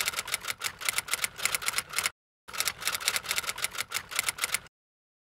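Typewriter typing sound effect: two runs of rapid key clicks, with a short break about two seconds in, cutting off abruptly shortly before the end.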